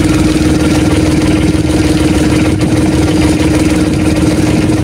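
Small engine of an outrigger fishing boat running steadily, a constant droning hum with a fast low chugging underneath.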